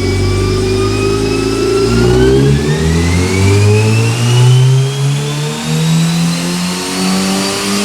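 Car engine on a chassis dynamometer making a pull, its revs climbing steadily, with a higher whine rising alongside it.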